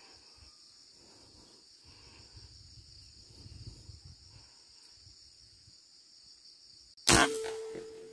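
Insects droning steadily in the forest canopy, then a single sharp rifle shot about seven seconds in, with a brief ringing after it.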